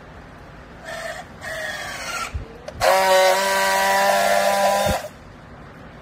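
Battery-powered handheld plastic-strap strapping tool at work on a bale strap. Its motor runs in two short spells about a second in while it tensions the strap. After a click, a louder, steady, high whine lasts about two seconds while it friction-welds the strap, then stops suddenly with a knock.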